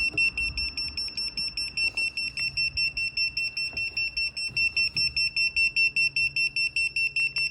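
A Tadeto 12V carbon monoxide and propane gas detector sounds its alarm: a shrill, high beep pulsing rapidly, about six times a second. The alarm is set off by the butane it has detected.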